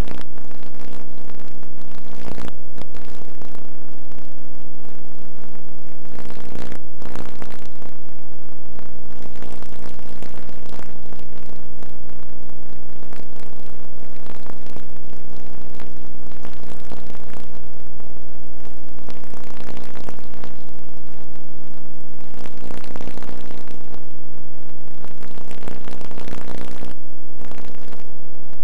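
Loud, steady electrical hum and buzz made of several fixed tones, with scattered crackles through it.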